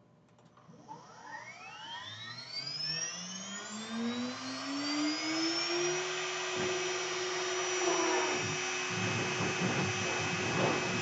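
A 2.2 kW air-cooled CNC router spindle spinning up to speed: a whine that rises in pitch for about five seconds, then holds as a steady high whine. About nine seconds in, a rougher noise joins it.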